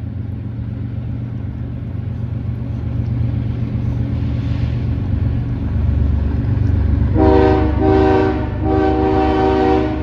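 Diesel locomotives of a CPKC freight train approaching, their low rumble growing louder. About seven seconds in, the lead locomotive's air horn sounds a chord in three blasts, the last held longest.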